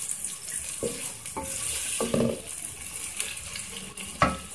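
Chopped onions sizzling in hot oil in a steel pot while a wooden spoon stirs them, knocking against the pot several times, with one louder ringing knock near the end. The onions are being lightly sautéed until translucent, not browned.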